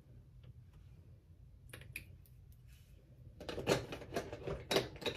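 Light clicks and taps of makeup products being handled: a few about two seconds in, then a dense run of clicking from about three and a half seconds on.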